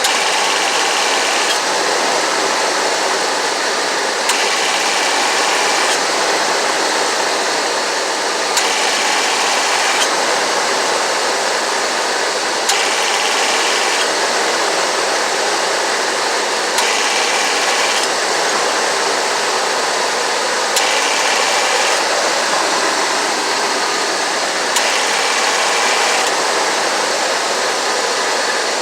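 1991 Ford E250's 5.8-litre V8 running, with the AC compressor clutch clicking in and out about every four seconds and a higher whine that comes and goes with each engagement. The rapid cycling is a sign of low refrigerant, which the owner suspects.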